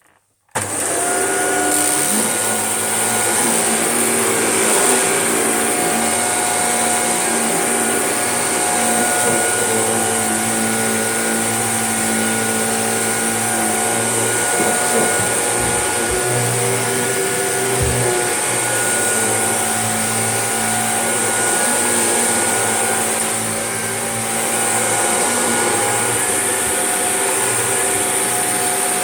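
Shark vacuum cleaner switched on about half a second in, then running steadily over carpet with a high motor whine. It is a second pass to check what the Hoover Junior left behind. A couple of low bumps come partway through.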